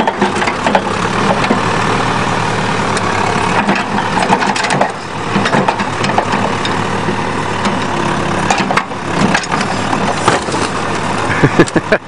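Case 580 CK backhoe's engine running steadily while its bucket crunches into a wrecked van's body. There are many irregular cracks and bangs of metal and glass giving way.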